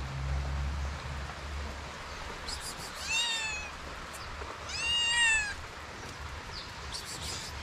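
Calico kitten meowing twice, about three seconds in and again around five seconds, the second call longer and louder; each call rises and then falls in pitch. A low rumble sits under the first second or so.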